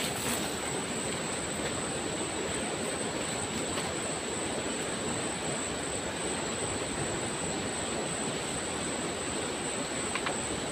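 Steady wind blowing across the microphone, a continuous even rushing with no separate events, and a faint click about ten seconds in.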